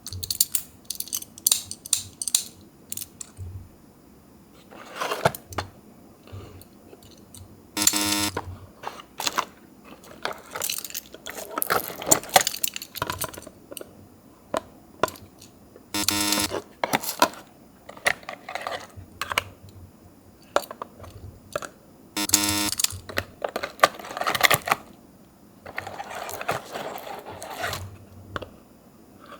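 Die-cast Tomica minicars and their small paper boxes being handled: irregular clicks, taps and short rattling stretches as the toy cars are picked up and slid into the boxes.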